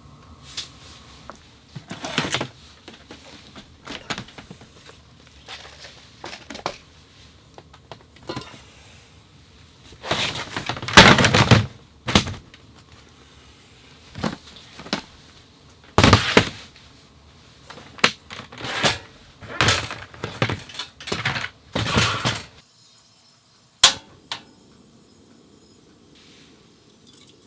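Irregular thunks, clunks and clatters of camp gear being handled in a small tent, loudest about eleven seconds in, over a steady low background noise that cuts off abruptly about 22 seconds in.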